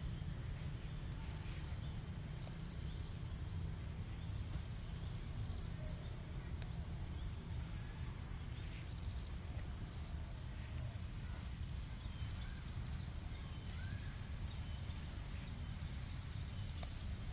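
Wind buffeting a phone microphone: a steady low rumble, with faint bird chirps here and there.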